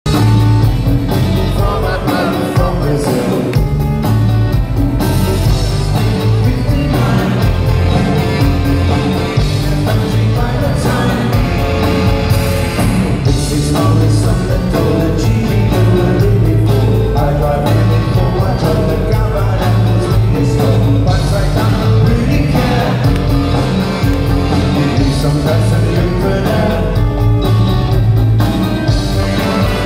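Live band playing amplified through a concert PA, recorded by a phone among the audience: a steady drum beat and strong bass under keyboards and saxophone, with a man singing into a microphone.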